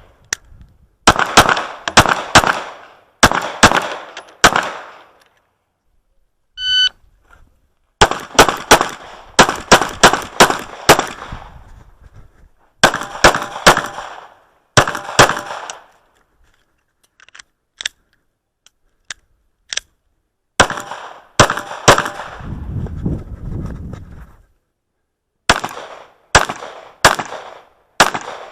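Sig P365 9mm pistol fired in quick strings of several shots, each ringing out, with pauses of a second or more between strings. A short electronic beep sounds about seven seconds in.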